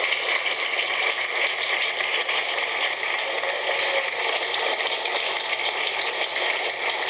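A large audience applauding steadily, a dense, even clatter of many hands clapping, as the crowd rises in a standing ovation.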